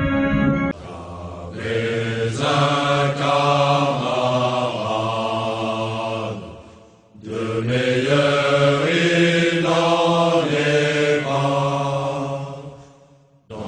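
Slow liturgical chant sung by low voices, in two long phrases with a short break about seven seconds in. Music ending just under a second in.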